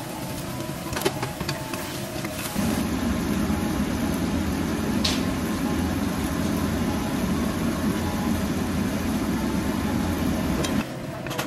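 A few taps of a wooden spatula against the wok. Then, from about two and a half seconds in, the gas burner under a simmering wok gives a steady low rumble that cuts off about a second before the end.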